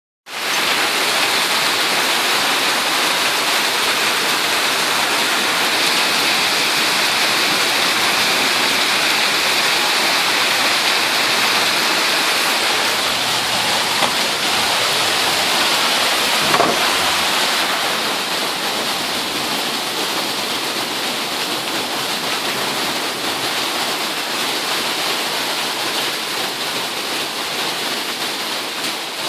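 Hail and rain pelting down in a dense, steady hiss of impacts, with one sharper hit near the middle. It eases slightly a little past halfway.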